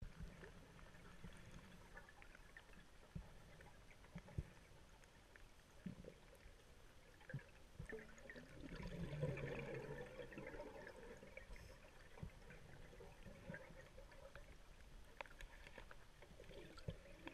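Faint underwater sound from a diver's camera: scattered small clicks and a low background hiss, with a longer, louder spell of scuba regulator exhaust bubbles about eight seconds in.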